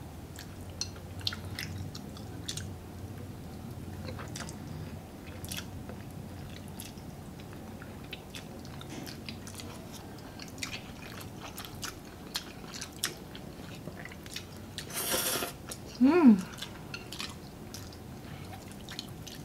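Close-miked eating of spaghetti carbonara: soft chewing with scattered light clicks of forks against bowls. About 15 seconds in there is a brief hiss-like burst, then a short vocal sound falling in pitch, the loudest moment.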